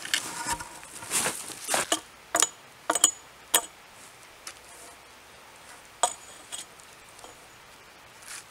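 Hand saw cutting through a log in a few rasping strokes, followed by several sharp knocks with a faint metallic ring, then two lighter knocks.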